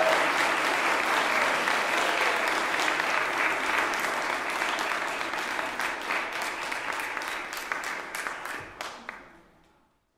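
Audience applauding, the dense clapping thinning to a few scattered claps and dying away near the end.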